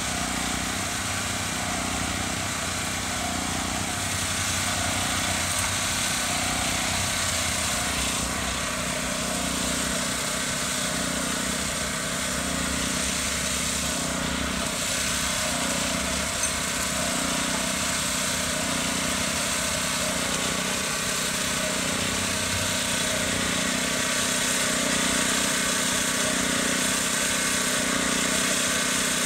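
A small engine running steadily at a constant speed, with no change in pitch or load.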